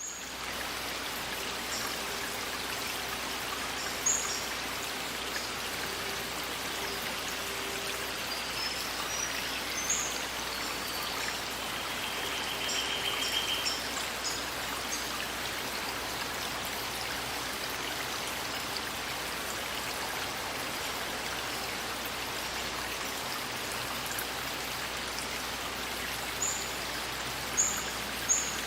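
A forest stream flowing with a steady rush of water. Short high bird chirps come in now and then, several of them near the end.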